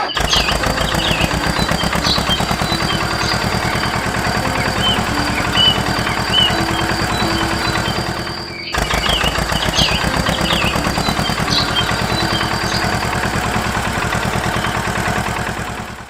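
Small engine running steadily, a fast, even string of firing pulses, with birds chirping over it. The sound breaks off for an instant just past halfway and resumes.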